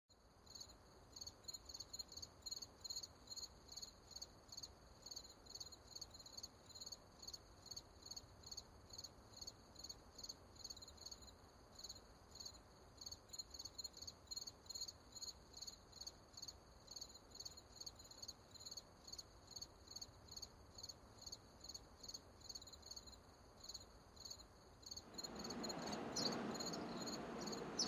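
Crickets chirping steadily at night, about two chirps a second. Near the end a steady, low rushing background noise comes in beneath them.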